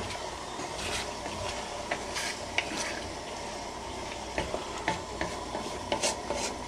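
A spoon stirring jambalaya in a cooking pot, with scattered light clicks and scrapes against the pot, over a steady sizzle.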